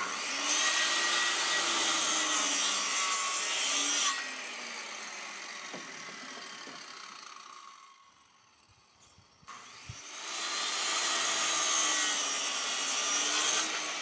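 Circular saw cutting through a timber beam, making the end cuts for a slot: one cut for about the first four seconds, then the saw winds down, a knock near ten seconds in, and a second cut runs until near the end.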